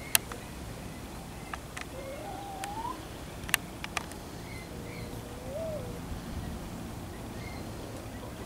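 Birds calling in the background: a wavering rising whistle, then a low held whistle that lifts and falls, with a few faint high chirps. Several sharp clicks cut across it, the loudest just after the start and about three and a half seconds in.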